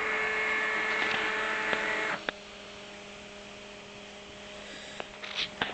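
Three stepper motors of a home-built CNC setup running a commanded X, Y and Z move: a steady whine of several pitches that stops abruptly about two seconds in as the move ends. A fainter steady hum stays after, with a few light clicks near the end.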